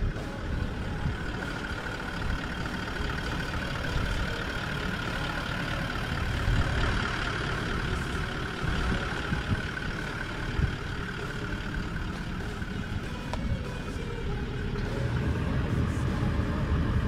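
Toyota LandCruiser 79 Series engine idling, a steady low rumble.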